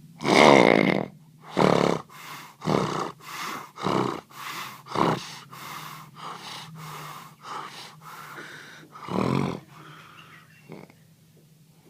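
A person snoring loudly, a quick run of rasping, snorting breaths about two a second, the loudest near the start and again near the end, over a steady low hum.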